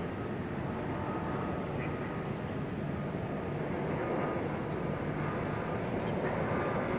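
Distant jet airliner flying low, a steady rushing drone that grows slightly louder over the last few seconds.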